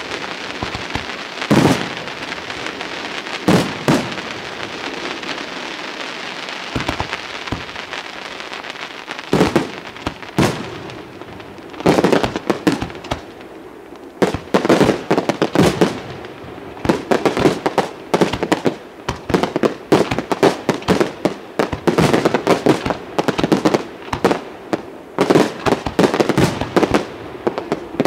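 Aerial firework shells bursting in a night display: a hissing crackle with a few single bangs at first, then from about nine seconds in a rapid, ever denser run of sharp reports and crackles.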